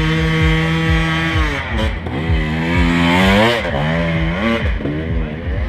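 Dirt bike engine running at high revs, held steady at first, then rising and falling repeatedly as the throttle is worked.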